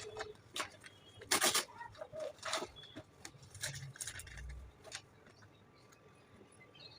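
Packaging handled during an unboxing: irregular rustles, crinkles and clicks, the loudest about one and a half seconds in, dying down in the last two seconds.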